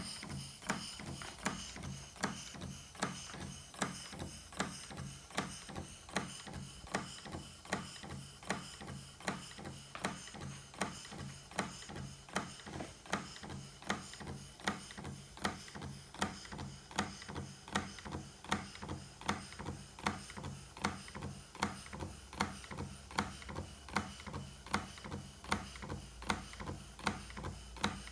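Model Stuart beam steam engine running steadily: an even beat of sharp clicks, about two to three a second, over a low steady hum.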